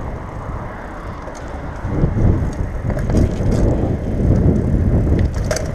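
Bicycle riding along a road: a steady rumble of tyres and wind on the microphone, growing louder about two seconds in, with a few faint clicks or rattles.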